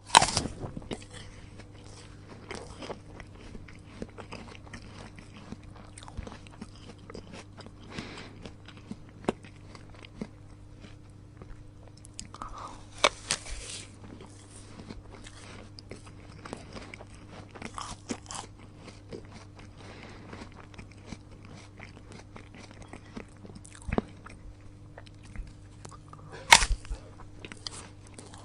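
A person biting into a crisp apple and chewing it: sharp crunches from the bites, loudest at the start, about halfway through and near the end, with many small wet crackles of chewing in between. A low steady hum runs underneath.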